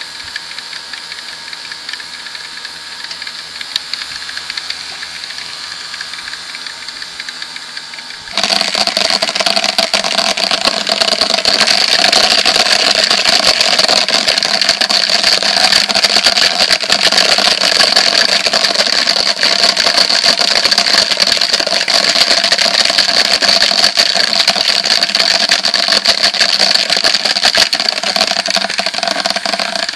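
Two small vibrating motors buzzing steadily. About eight seconds in the sound jumps much louder and rougher, a rattling buzz, as the motors shake inside a clear plastic tub.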